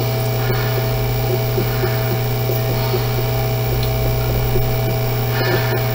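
Steady low electrical mains hum with a fainter steady higher tone above it, running unchanged.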